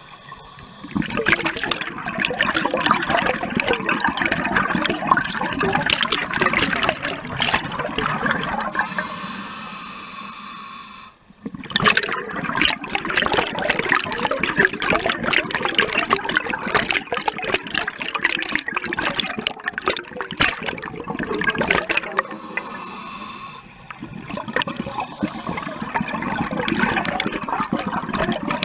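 Scuba divers' exhaled air bubbling and rushing out of the regulator underwater, in long loud bursts. The bursts break off briefly about a third of the way in and again about three quarters of the way in, while the diver breathes in.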